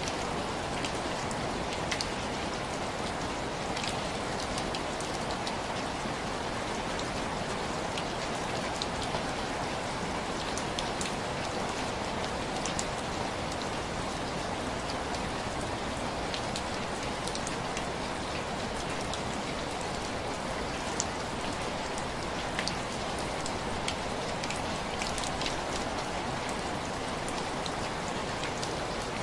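Steady heavy rainfall, an even dense hiss, with scattered faint ticks throughout.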